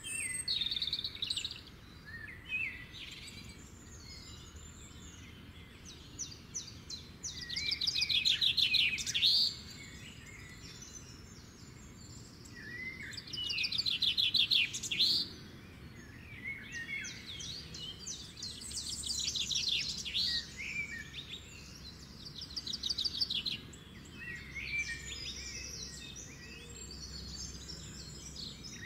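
Birds chirping and singing, with several loud, fast trills, over a faint steady background hiss.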